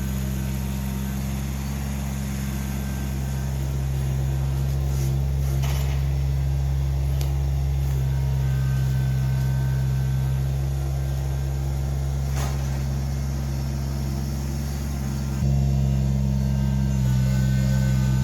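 Engine of the machine clearing logs and brush, running steadily, with a couple of brief knocks. It steps up louder, as if put under more throttle or load, about fifteen seconds in.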